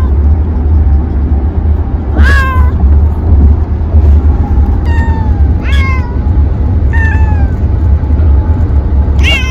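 Domestic cat meowing repeatedly inside a mesh travel carrier, about six meows a second or two apart, several falling in pitch. A steady low rumble runs underneath.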